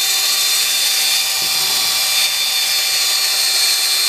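DeWalt 12V MAX cordless drill spinning a drill-brush attachment at a steady speed, its motor whine held at one pitch over the hiss of the bristles scrubbing a metal pole.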